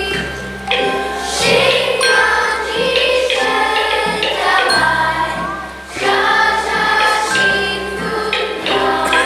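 Music with a choir singing a melody.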